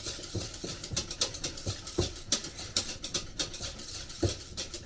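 A utensil stirring thick instant mashed potato in a stainless steel pot, scraping and knocking against the pot in irregular clicks, several a second, with a few louder knocks about two seconds in and near the end.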